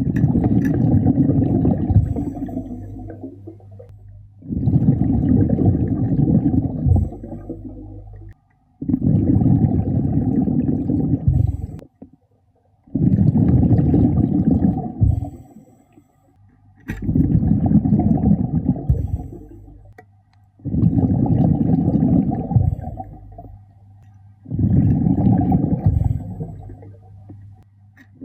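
A scuba diver's exhaled breath bubbling out of the regulator exhaust, a rush of bubbles about every four seconds, seven times, each one fading out before the next breath.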